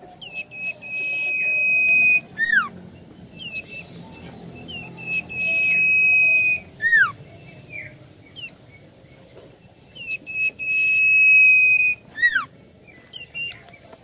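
Iora (cipoh) singing: a long, steady high whistle, each ending in a quick downward-slurred note. The phrase comes three times, with short chirps in between.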